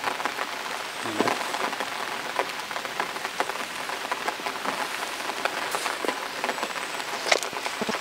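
Light rain falling on wet stone: a steady hiss with many small scattered taps.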